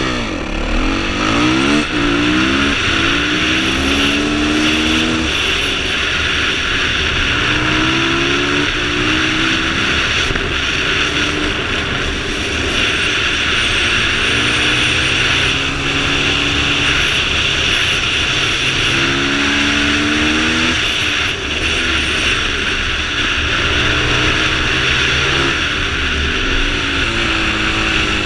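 Yamaha WR450F supermoto's single-cylinder four-stroke engine accelerating hard from the start line and up the hill. Its pitch rises repeatedly through the gears and drops back at each shift and corner, under loud wind rushing over the microphone.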